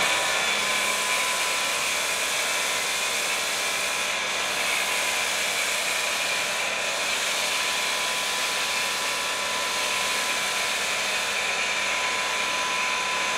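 Pressure washer spraying through a foam cannon fitted with a 1.1 mm orifice: a steady hiss of foam jetting out, with a steady high whine underneath.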